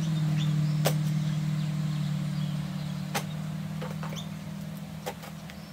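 A low, steady engine hum, like a passing vehicle, slowly dropping in pitch and fading away. Over it come three sharp clicks of scissors snipping packing tape on a cardboard box, and a few faint bird chirps.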